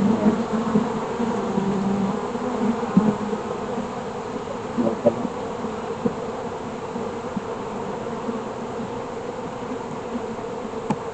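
Honeybees buzzing in a steady hum around an open hive, with a few light knocks.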